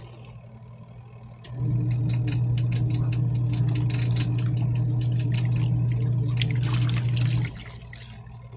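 Wash motor of a Costway twin-tub washing machine churning a load of clothes in water, with splashing and sloshing in the tub. The motor hum cuts in about a second and a half in, runs steadily for about six seconds, then stops, as the wash timer pauses between agitation runs.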